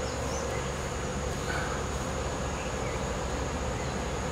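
Insects droning steadily in a continuous high-pitched whine, over a low steady rumble.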